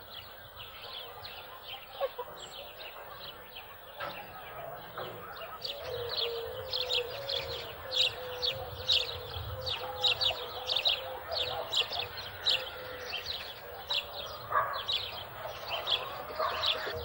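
Chickens clucking among a rapid run of high, short chirps, a few per second, that grow louder about six seconds in.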